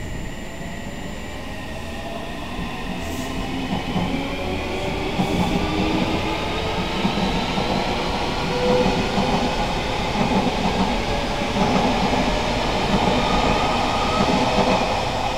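Odakyu 3000 series electric commuter train pulling away from a station. Its traction motors whine in several tones that climb steadily in pitch as it gathers speed, and the wheels beat a regular clatter over the rail joints that grows louder as the cars roll past.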